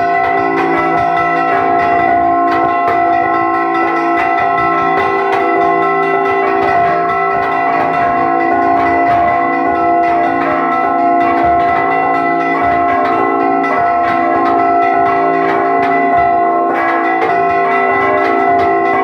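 Church bells rung by hand in a repique: several bells struck in rapid, unbroken succession, their tones ringing on over one another, with a large bell swung round on its wheel among them.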